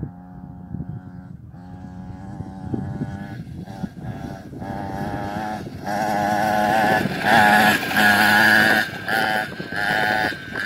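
Children's mini bike running, its motor revving up and easing off again and again as the throttle is opened and closed, louder from about halfway through.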